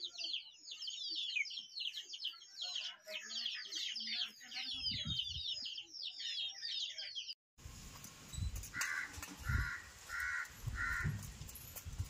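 Small birds chirping rapidly and without a break, in quick falling notes. After a sudden cut, four evenly spaced call notes come about two-thirds of a second apart, over low thumps.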